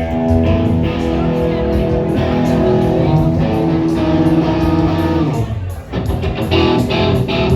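Live rock band playing amplified on stage: electric guitar chords held over bass, with drum and cymbal strokes. The music dips briefly just before three-quarters of the way through, then picks up again.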